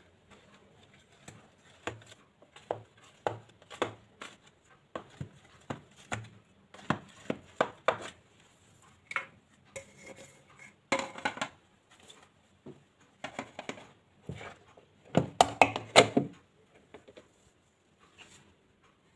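Irregular taps and knocks of a spatula, an aluminium cake tin and a plate on a tiled floor as a steamed cake is loosened and turned out of its tin. A denser clatter comes about eleven seconds in, and the loudest cluster of knocks comes about fifteen seconds in.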